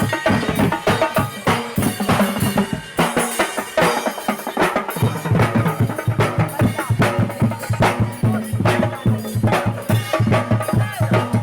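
Parade music with a fast, steady drum beat; a low bass line comes in about halfway through.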